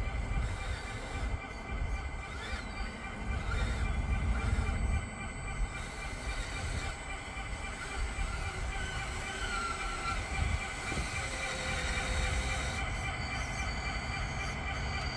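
Scale radio-controlled bulldozer driving forward, its electric drive motors and gearboxes giving a steady, high-pitched whine of several tones over a low rumble.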